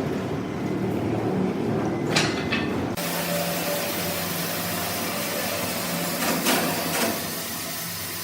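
Sawmill machinery running with a steady mechanical noise. The sound changes abruptly about three seconds in to a steadier low hum with hiss, and a few short knocks come near the end.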